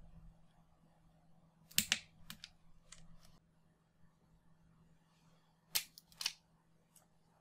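Wire cutters and wire strippers cutting and stripping solid 22-gauge hookup wire: a few sharp snips about two seconds in, and another quick cluster around six seconds.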